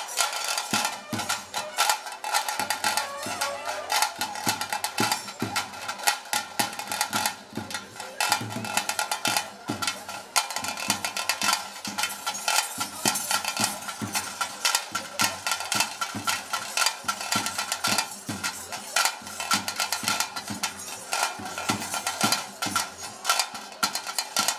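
Bhoota kola ritual band music: fast, dense drumming on thaase drums, sharp strokes in quick succession, over a steady held high tone.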